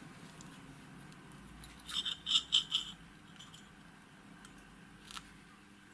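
Light metallic clicks and rattles for about a second, as the stainless-steel housing of a Keller pressure transducer is slid apart by hand; one more click near the end.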